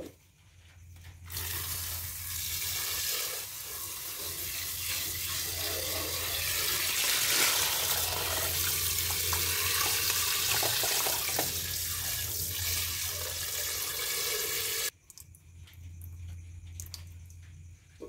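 Just-washed rice poured from a metal pot into a woven bamboo steaming basket: a steady, wet-sounding hiss of grains with small ticks of rice on the bamboo. It starts about a second in and cuts off abruptly a few seconds before the end.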